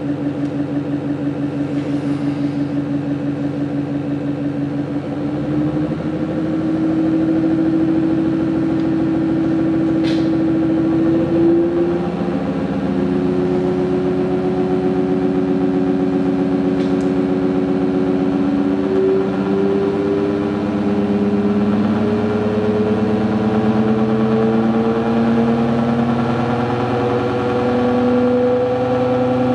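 ReGen-X pulsed DC stepper motor running with a rapidly pulsing hum and whine. It gets louder about five seconds in, and its pitch climbs slowly and steadily as it speeds up.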